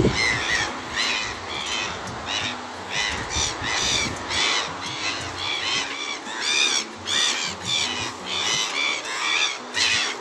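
Birds calling over and over, about two or three short calls a second, with a few faint steady low notes underneath.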